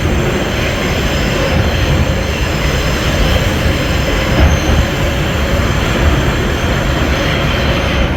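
Vintage 1917 IRT Low-Voltage subway car running on the line, heard from aboard: a loud, steady rumble of wheels on track with a faint steady whine. Some faint high-pitched ringing fades out about halfway through.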